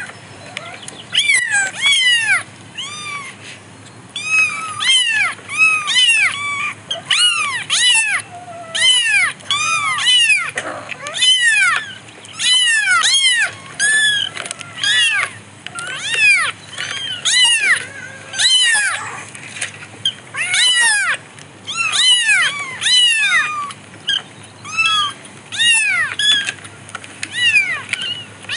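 Several young kittens mewing over and over: short high-pitched mews that rise and fall in pitch, often overlapping, about one to two calls a second.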